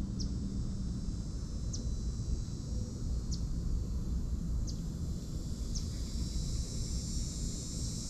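Outdoor nature ambience: a small bird gives short high chirps, five in all, about every one and a half seconds, over a steady insect hum that grows louder near the end and a low rumble.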